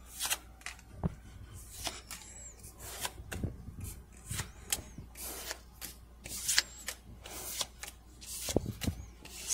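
Pokémon trading cards flicked through by hand, each card slid off the stack with a quick papery swish or snap, irregularly, about one to two a second.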